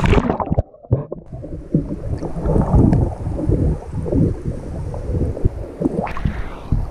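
Muffled rumbling and sloshing of water moving around a GoPro action camera held underwater. Near the end the camera breaks the surface with a splash.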